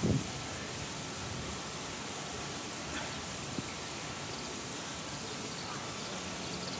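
Steady hiss of water spray falling into the penguin pool, with a faint tick or two about three seconds in.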